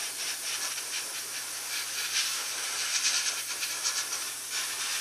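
Airbrush spraying paint onto a small model part: a steady hiss of air and paint that wavers in strength, with a few louder spurts past the middle.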